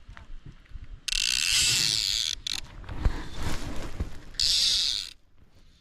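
A fishing reel's ratchet buzzing with rapid clicks in two runs, a longer one about a second in and a shorter one near the end, as line is pulled off or wound onto the spool.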